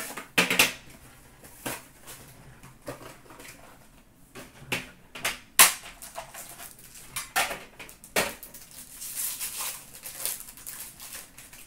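Plastic shrink-wrap and a card pack wrapper being torn and crinkled by hand: irregular crackling rustles with several sharp snaps and knocks, and a denser stretch of crinkling near the end.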